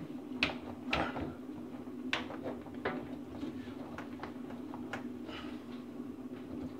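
Dishwasher drain hose being worked by hand onto the sink drain's branch fitting: scattered light clicks and knocks of the hose and its clamp against the pipework, over a steady low hum.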